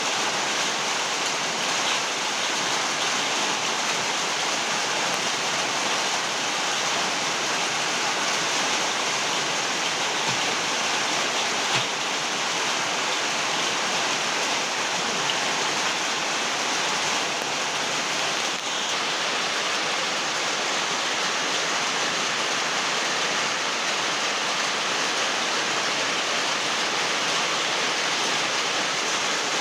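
Very heavy rain falling steadily, a dense even hiss of the downpour.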